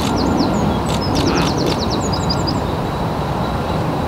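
Small songbirds chirping, a run of quick high descending chirps that thins out about two-thirds of the way through, over a steady loud low outdoor rumble.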